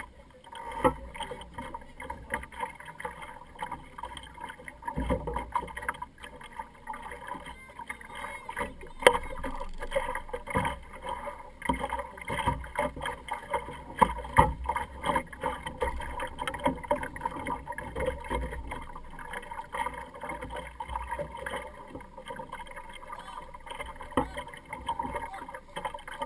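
Choppy water slapping and splashing against the hull of a small sailing dinghy under way, with irregular short knocks over a steady rush of water.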